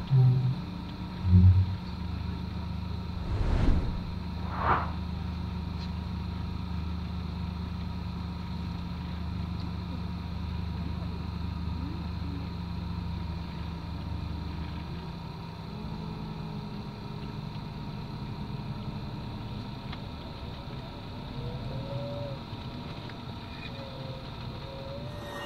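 Bus diesel engine running with a steady low hum, heard from inside the vehicle. There are a few loud knocks in the first couple of seconds, and a little past halfway the hum shifts in pitch.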